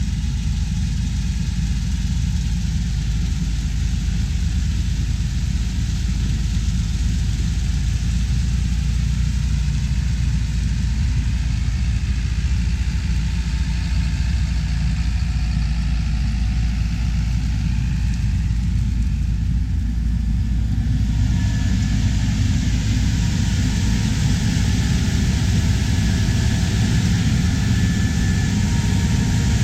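Heavy harvest machinery, a combine or tractor, with its engine running steadily. About two-thirds of the way through, a brighter hiss joins the low engine rumble.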